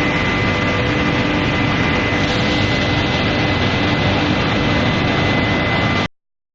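Induction heating equipment running: a steady loud roar of noise with a high steady whine and lower steady hums. It cuts off abruptly about six seconds in.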